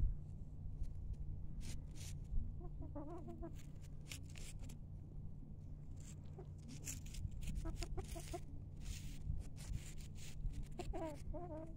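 Chickens clucking in short, quiet runs, about three seconds in, again around seven to eight seconds, and near the end, with short dry clicks and rustles in between.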